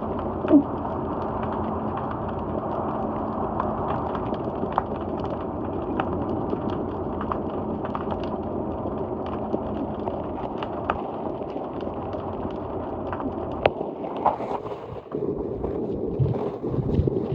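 Seawater washing beneath a wharf: a steady rushing with many small scattered clicks and pops. It dips briefly near the end, followed by a few low thumps.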